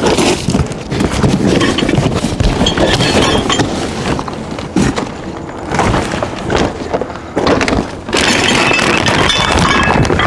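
A cardboard shipping box being torn open and its packing handled: ripping, rustling and scattered knocks and thuds.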